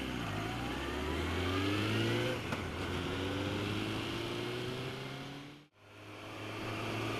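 Motorcycle engine accelerating through the gears: its pitch rises, drops back at a gear change about two and a half seconds in, and rises again. Near the end the sound cuts out for an instant, then the engine runs on at a steady pitch.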